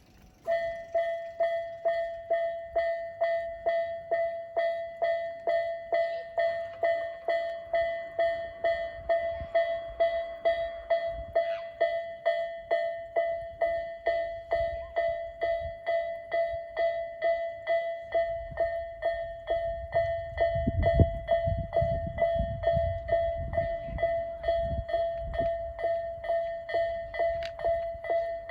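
Japanese railway level-crossing warning bell of the Tobu Isesaki-line type, an electronic ding starting about half a second in and repeating evenly at about two and a half strikes a second. A train rumbles past under it in the second half.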